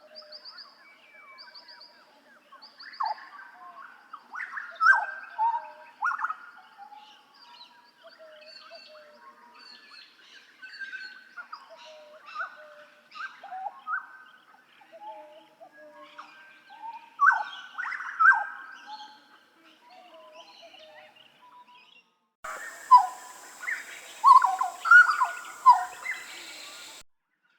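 Hooded butcherbird (jagal Papua) singing loud phrases of short whistled notes, each sliding quickly in pitch, with gaps between the phrases. About three-quarters of the way through, a different, hissier recording of the same song cuts in and then stops abruptly.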